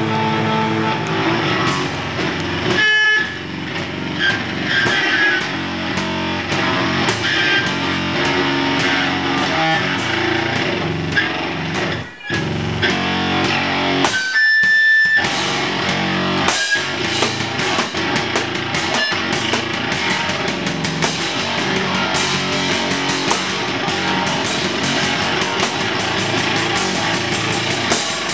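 Live rock music from electric guitar and drum kit, played loud, with a few brief stops about three, twelve and fifteen seconds in.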